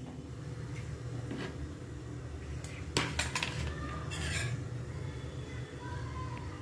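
A few sharp metallic clinks on an aluminium kadhai about three seconds in, then a short scraping hiss, over a steady low hum. Whole spices are sitting in the oil in the pan.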